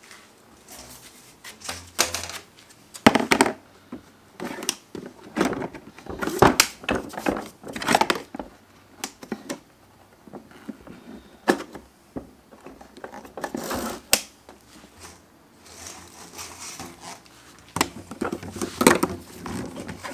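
Irregular clicks, knocks and rattles of hard plastic as a Ryobi 18V wet/dry vac's nozzles, crevice tool and hose are snapped onto the HoseDock clips on its lid.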